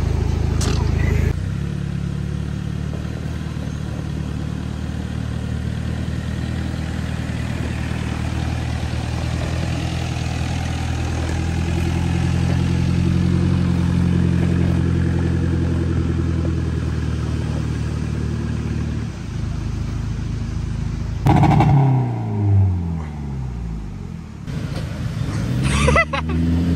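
Toyota Hilux pickup's engine pulling steadily in low gear as the truck crawls up a dirt slope, its pitch rising a little partway through. Later the revs drop away quickly, then swell and fall again near the end.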